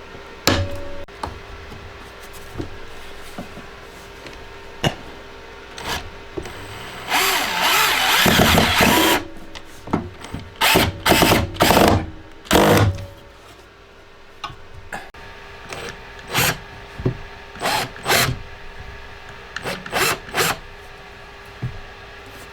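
Right-angle drill driving pocket-hole screws: one long run of a couple of seconds about a third of the way in, then a series of short trigger bursts as the screws are snugged down.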